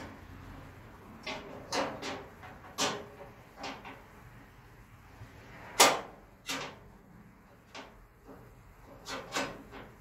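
Irregular metal clicks and knocks from the tailgate latch hardware of a Chevy C-10 as it is handled and fitted at the tailgate's edge: about a dozen sharp knocks, the loudest about six seconds in.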